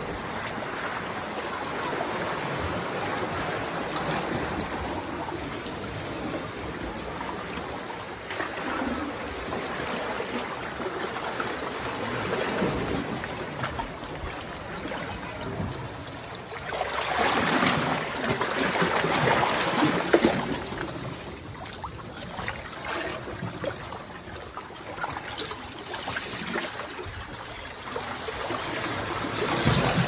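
Churning water rushing and splashing among rocks close by, swelling louder for a few seconds a little past halfway and again near the end.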